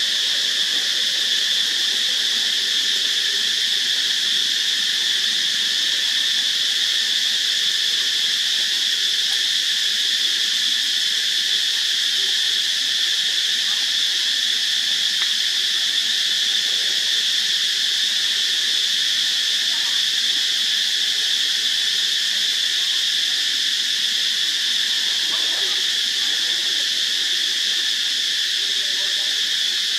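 Steady chorus of insects, a continuous high-pitched buzz that holds level and unbroken throughout.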